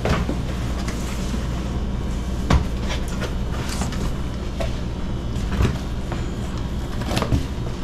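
A cardboard rifle box being set down on a counter and its lid opened, giving a handful of scattered dull knocks and scrapes of cardboard over a steady low hum.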